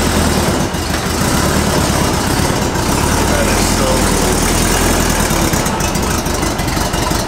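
1959 Volkswagen panel van's air-cooled flat-four engine, a 1641 cc, idling steadily.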